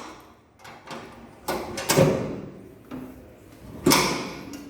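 Two loud knocks about two seconds apart, each dying away over a fraction of a second.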